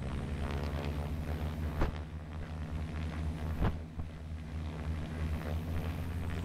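The Diamond DA62's twin Austro turbodiesel engines running steadily, with two short thumps about two and three and a half seconds in.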